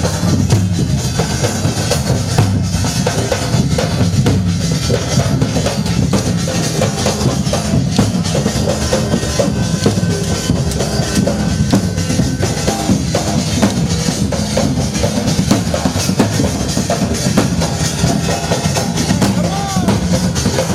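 Drums beating a continuous loud rhythm, the drumming that accompanies the Ger dance, with sharp strokes throughout.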